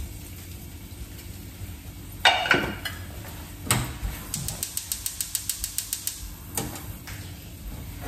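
Frying pan jostled on the gas hob's grate: two clanks, then a quick, even run of about seven light clicks a second for some two seconds, and another knock near the end. Underneath, a faint steady sizzle of a potato galette frying in olive oil.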